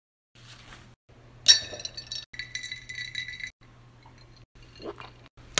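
Ice clinking in a bottle of Snapple tea: a sharp clink about a second and a half in, followed by about two seconds of ringing rattle.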